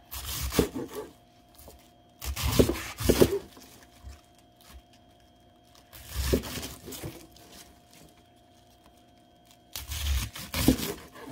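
Chef's knife slicing through a firm head of raw cabbage, crunching as the blade cuts the leaves and knocking on a plastic cutting board. The cuts come in four short bouts with pauses between.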